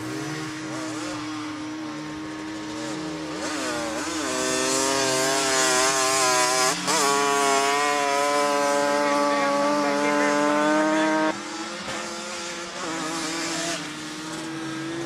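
Snow quad (an ATV fitted with front skis and a rear track) being ridden through snow, its engine revving up and down. From about four seconds in it is held at high revs for some seven seconds, then the throttle drops off, with a steady lower engine tone underneath.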